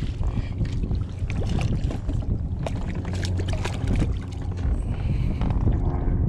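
Small redfish splashing at the surface beside a kayak as it is reeled in and lifted out of the water, with quick irregular splashes throughout, thickest in the middle. A steady wind rumble on the microphone runs underneath.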